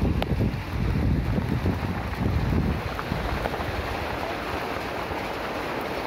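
Wind buffeting the phone's microphone, a heavy low rumble for about the first three seconds, then a steady even hiss.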